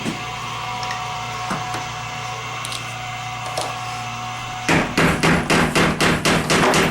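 Hammer rapidly tapping on metal, about four strikes a second, starting near the end: a punch being driven against a dirt bike chain pin to push it out of a link. Before the strikes there is only a steady low hum and a few faint clicks.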